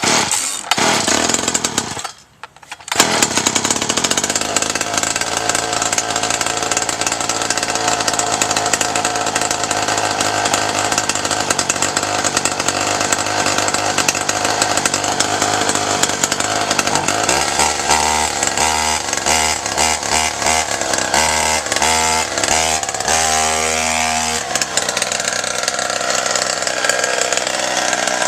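Poulan 3400 56cc two-stroke chainsaw engine with a KTM 85 SX expansion pipe, started on choke: it runs for about two seconds, cuts out, catches again about three seconds in and then runs continuously at high revs. About two-thirds of the way through, its note changes to a pulsing sound.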